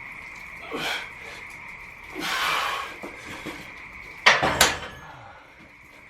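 Metal clanks of a barbell and iron weight plates being handled, the loudest two sharp clanks about four seconds in, with softer knocks before. Underneath, a steady high-pitched chorus of frogs calling and rain falling.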